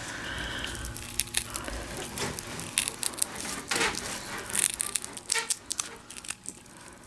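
Hook-and-loop (Aplix) tape being handled and trimmed with scissors: scattered small crackles, rips and snips.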